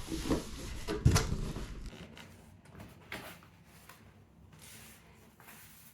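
Cardboard box and packing being opened and handled: a knock about a second in, then a few soft scrapes and rustles.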